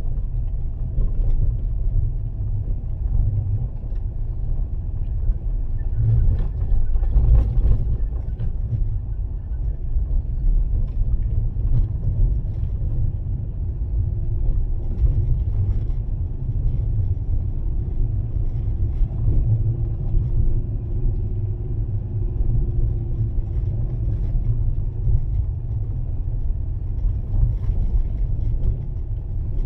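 Fiat Panda 4x4 driving along a snowy road: a steady low rumble of engine and tyre noise, with a faint hum rising and falling through the middle.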